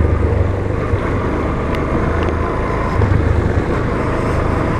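Yamaha Fazer motorcycle's engine running steadily while riding along a dirt road, with wind noise on the microphone.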